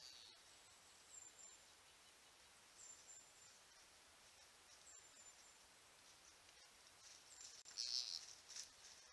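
Faint rustling and crunching of a Columbian blacktail buck's hooves in dry fallen leaves, loudest about eight seconds in as it comes close. Faint, thin, high chirps repeat every second or two.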